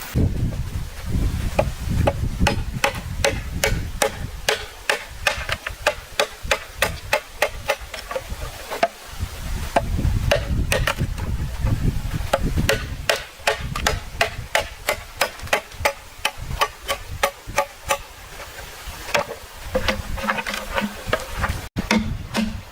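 Repeated sharp blows of a tool on wood, about two to three a second, with heavy low thumps beneath them: bamboo being struck in hut building.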